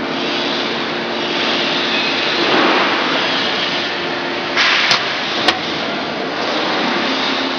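Steady mechanical running noise from the vacuum membrane press. About five seconds in, two sharp metallic clicks sound as the sheet-metal electrical cabinet door is unlatched and swung open.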